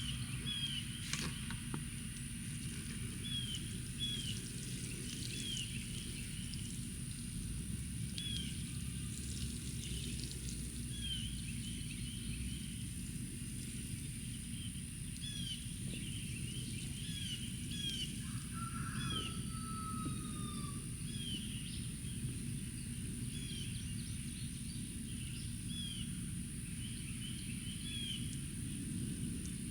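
A bird repeating a short chirp about once a second, with one longer falling call a little past halfway, over a steady low outdoor rumble.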